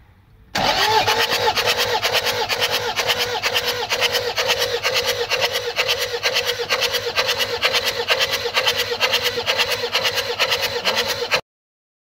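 Starter motor cranking a Toyota 2KD-FTV four-cylinder common-rail diesel with its injectors out of the head, the injectors spraying fuel into the open in a spray test to find the faulty one. A steady starter whine sits under a fast, even pulsing with hiss, starting about half a second in and cutting off suddenly near the end.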